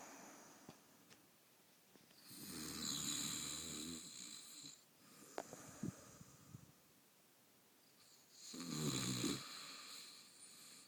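A man snoring: two long, rattling snores about six seconds apart, each a low buzzing rattle with a breathy hiss. The first comes about two seconds in and the second near the end.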